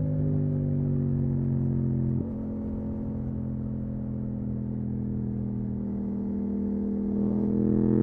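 Yamaha MT-07's parallel-twin engine heard on the move through a full Akrapovič titanium exhaust. The note eases slowly down in pitch and drops in loudness about two seconds in, then climbs in pitch and loudness again near the end as the bike accelerates.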